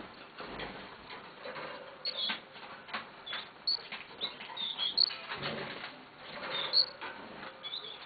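Red factor canary moving about its cage: short high chirps and cheeps at irregular intervals, mixed with light taps, rustling and brief wing flutters.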